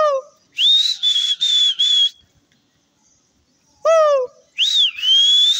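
A pigeon flyer's loud, breathy whistles, each coming just after a short falling shout. The first whistle is broken into four blasts; the second swoops up, dips and rises again. These are calls used to drive a flying flock of pigeons higher.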